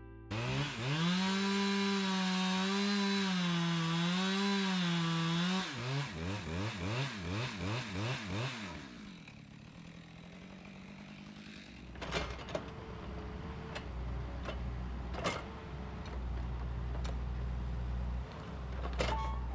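Gas chainsaw cutting firewood at full throttle, its pitch wavering under load. About six seconds in it revs down and up a few times, then drops away. After that comes a steady low engine rumble with several sharp knocks.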